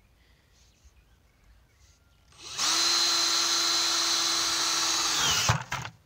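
Cordless drill with a spade bit boring a hole in the wall of a plastic five-gallon bucket: it starts about two and a half seconds in, runs at a steady pitch for about three seconds, then dips in pitch and stops. A few sharp knocks follow.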